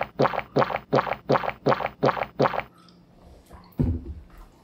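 Rapid gulping of beer: a quick, even run of about eight swallows, roughly three a second, that stops a little over halfway through. Near the end comes a single dull, low thump.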